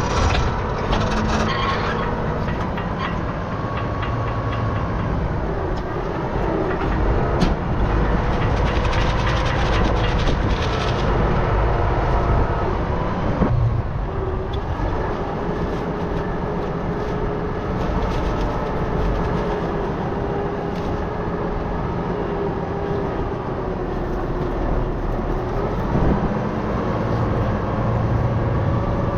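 Farm tractor engine running steadily while pulling a field implement, with a held drone that drifts slightly in pitch and scattered rattling and clatter throughout.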